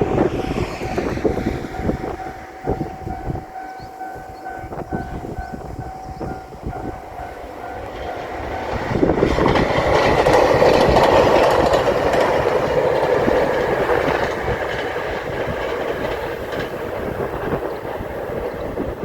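A railway crossing warning bell rings at a steady, rapid beat. About nine seconds in, a diesel limited-express train reaches the crossing and passes loudly, its engines and wheels on the rails drowning out the bell.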